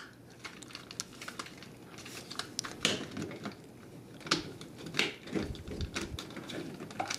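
Hard plastic parts of a Transformers Prime Weaponizer Bumblebee action figure clicking and knocking in the hand as its pieces are folded and tabbed together into car mode. The clicks come irregularly, with a few sharper ones in the middle.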